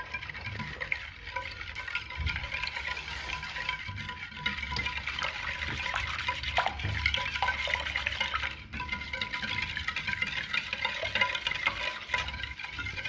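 A utensil stirring a liquid lemon ice-cream mixture in a wide bowl: continuous sloshing with quick scraping and clinking against the bowl.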